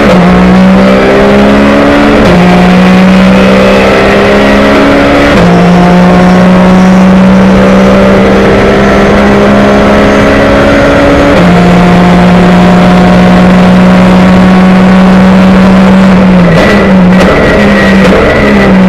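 Porsche 911 race car's flat-six engine heard from inside the cockpit, pulling hard with the revs climbing through each gear and upshifts about two, five and eleven seconds in. Near the end the revs fall and waver with downshifts.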